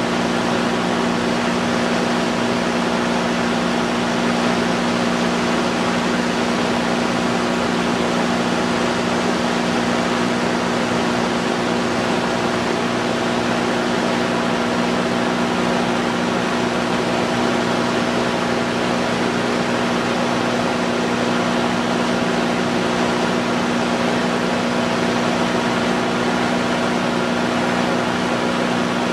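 Light aircraft's propeller engine running steadily in cruise flight: a constant drone with a low, even hum, mixed with rushing airflow noise.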